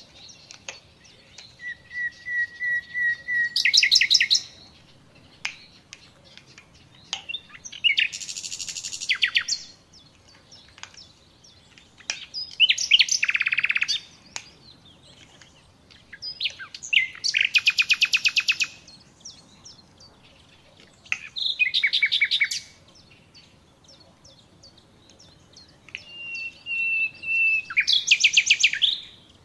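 A songbird singing six short phrases a few seconds apart, several opening on a held whistle that breaks into a rapid trill.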